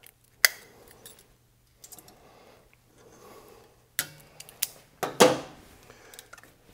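Steel exhaust springs being stretched with pliers and hooked across a motorcycle's muffler-to-link-pipe joint: several sharp metallic clicks and clinks, the loudest a snap about five seconds in.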